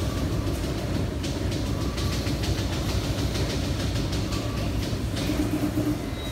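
Steady low mechanical rumble of a sheet-metal workshop's running machinery, with a hum and light scattered clicks and rattles over it.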